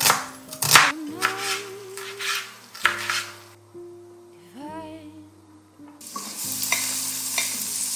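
A chef's knife slicing a red onion on a wooden cutting board, sharp strokes about half a second apart for the first three seconds or so. About six seconds in, sliced onions start sizzling in oil in a stainless steel frying pan. Soft instrumental music plays underneath.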